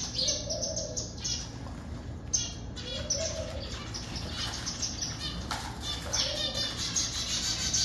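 Aviary birds chirping busily, many short high calls overlapping, with a soft low coo that comes back about every three seconds.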